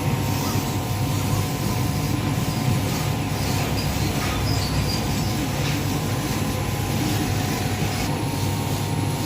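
CNC laser cutting machine running steadily: a continuous hum and hiss with faint steady whining tones and no pauses.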